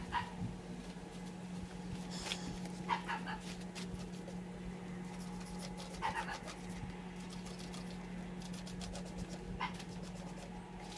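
Trigger spray bottle squirting degreaser onto a bare engine block, a few squirts at first and then many quick ones in a row in the second half. A steady low hum runs underneath.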